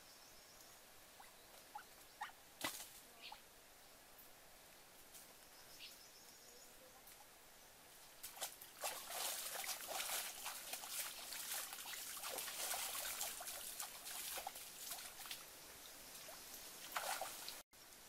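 Splashing in shallow stream water, starting about halfway through and lasting about eight seconds, with a few faint clicks before it.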